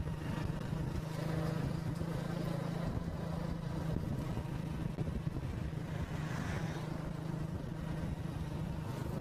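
Engine of a slowly moving vehicle running steadily: a low, even hum with no marked changes.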